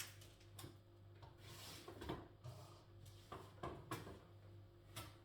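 Faint scattered knocks and clicks with a brief rustle, as of kitchen things being handled, over a low steady hum.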